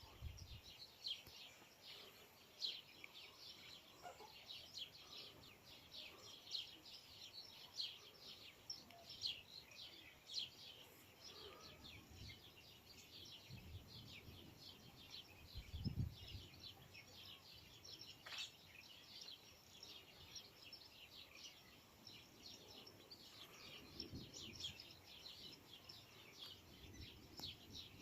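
Birds chirping continuously, many quick high chirps overlapping, with a few brief low rumbles underneath; the loudest rumble comes about sixteen seconds in.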